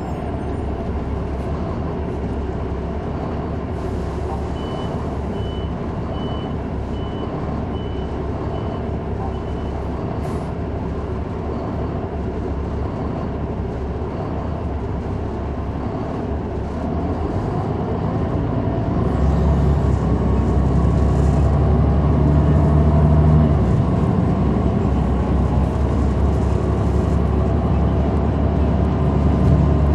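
Caterpillar C9 ACERT diesel engine of a Neoplan AN459 articulated transit bus, heard from inside the cabin, running with a steady hum. A little past halfway it grows louder and its low drone strengthens. Early on a string of about seven short, high beeps sounds.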